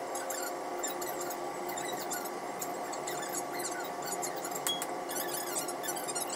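Steady hum of the ferry's machinery, with many small irregular ticks of raindrops hitting the window glass.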